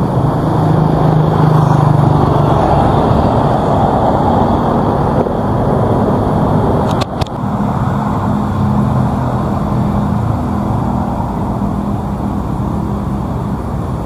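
Steady low rumble of motor-vehicle traffic with a droning hum, and a short click about seven seconds in.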